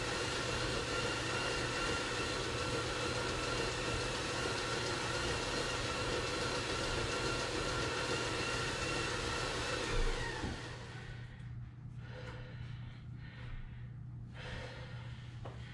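Road bike tyres spinning on belt-driven bicycle rollers, making a steady whine. About ten seconds in the whine falls in pitch and dies down, the sign of the rider easing off, and the rollers then run on more quietly.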